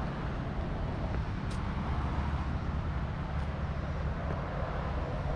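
Steady outdoor background noise: an even low rumble with hiss above it, and no distinct events.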